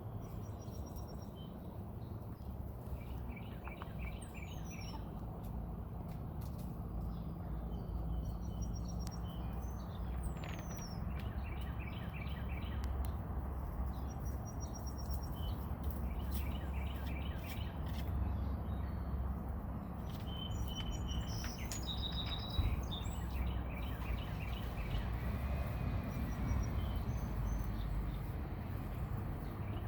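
Small birds calling agitatedly in a squabble: repeated quick series of short chirps, with a few falling whistles and short high trills, over a steady low rumble.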